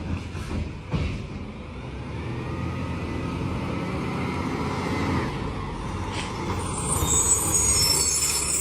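Garbage truck's diesel engine running with a steady low rumble that builds slowly, with one knock about a second in; a high hiss comes in near the end.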